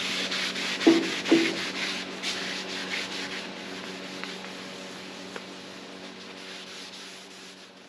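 A paper towel rubbing over a waxed cast-iron table saw top, wiping off the excess paste wax in quick swishing strokes, with two brief louder strokes about a second in. It fades out gradually toward the end.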